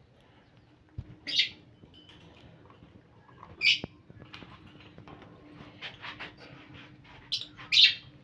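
Parrots squawking: four short loud calls, one about a second and a half in, one near four seconds, and two close together near the end, with soft chirps and chatter between.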